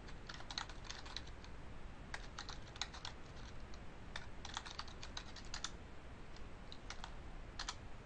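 Computer keyboard being typed on: short runs of quick keystrokes with pauses between them, then a few single key presses near the end.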